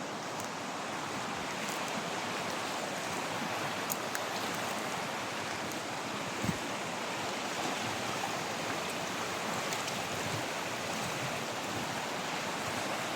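Steady rush of flowing river water, an even hiss with no let-up, broken only by a faint knock or two.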